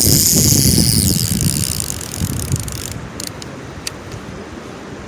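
Fishing reel going off: its ratchet buzzes rapidly as a fish pulls line off, a catfish taking the bait. A low rumble runs underneath. The buzzing stops abruptly about three seconds in, leaving a few scattered clicks.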